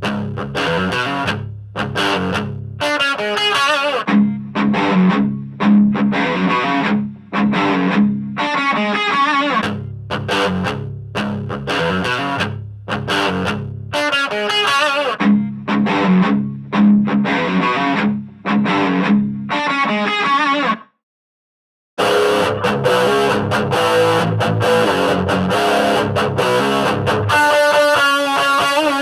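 Distorted electric guitar playing a repeated chord riff through a mini practice amp. It stops dead for about a second near the end, then resumes with a brighter tone.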